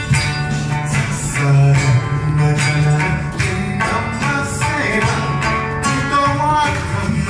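Live Okinawan folk song: a voice singing over strummed acoustic guitar and plucked sanshin.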